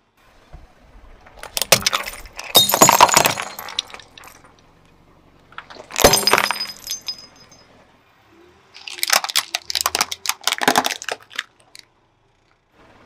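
Car tyre rolling over and crushing objects on asphalt: three separate bouts of crunching and cracking. The middle one, about six seconds in, is glass shattering with a ringing tinkle.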